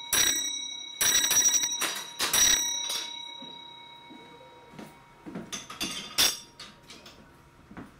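Signal box block bell struck in a short series of strokes, sending a bell code. Each stroke leaves a ringing tone that dies away slowly. Lighter knocks and clicks follow, with one sharper strike about six seconds in.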